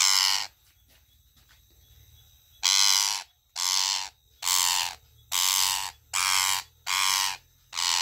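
Green parakeet screeching over and over while it is held and cut free from netting. One harsh squawk comes at the start, then after a pause of about two seconds a run of seven more, a little under a second apart.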